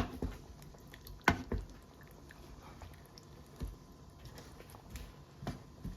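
A few sharp clicks and knocks spread over several seconds, with quiet between them.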